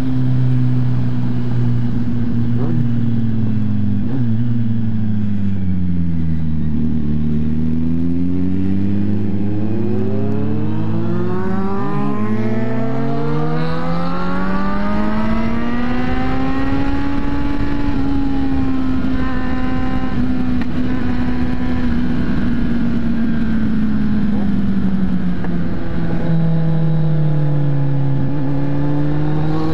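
Motorcycle engine heard from the rider's own bike while riding. Its note drops as the bike slows about six seconds in, then climbs steadily, with a break about twelve seconds in, and holds. It falls again shortly before the end and starts to rise as the bike picks up speed, with wind noise throughout.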